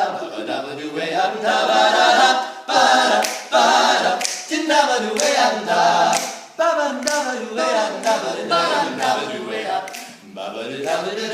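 Male a cappella group singing a wordless instrumental break in close harmony, voices imitating the band's lines, with sharp accented attacks between phrases.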